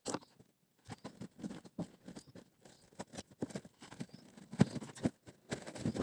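Irregular small taps, scrapes and knocks of hands and tools working loose parts inside a car's rear wheel arch with the wheel removed, with one sharper knock about two-thirds of the way through.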